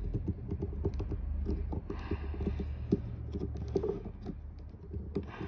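Small irregular plastic clicks and creaks of a flathead screwdriver tip pressing down a plastic retaining clip in a Rode NT-USB Mini's housing, working the circuit board loose.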